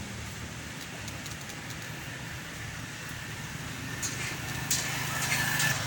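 A steady low motor hum, like a nearby engine idling, with dry twigs and leaves crackling sharply from about two-thirds of the way in.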